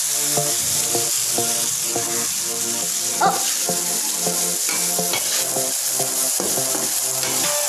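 Papaya flowers and pea eggplants sizzling in an oiled wok as a spatula stir-fries them, with a sharper scrape of the spatula about three seconds in. Background music with a steady beat plays underneath.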